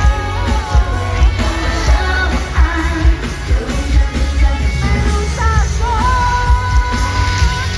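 Pop music with a female lead vocal over a steady, heavy bass beat; the singer holds one long note about six seconds in.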